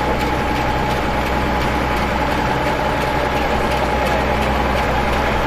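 Heavy vehicle or machine engine running steadily at a constant speed: a low drone with a steady high whine over it.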